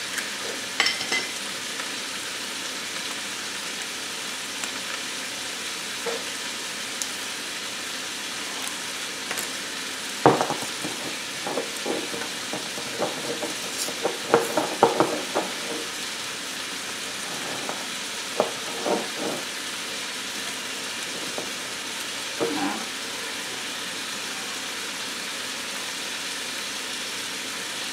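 Chicken and vegetables sizzling steadily in an electric multi-cooker's pot on its sear/sauté setting. Over the sizzle come scattered clicks and rattles of spice jars being opened and shaken, busiest around the middle.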